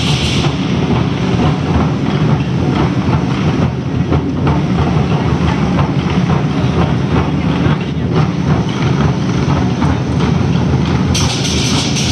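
Chinese lion dance percussion: a big drum beaten rapidly with clashing cymbals and gong, loud and dense. The bright, splashy top end drops back about half a second in and returns near the end.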